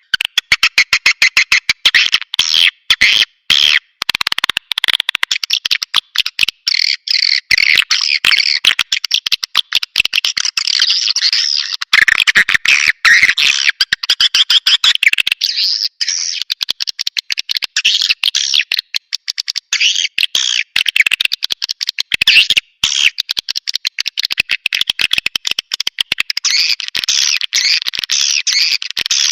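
Swiftlet lure recording: a dense, fast chatter of high twittering chirps, many calls overlapping in quick pulses with barely a break.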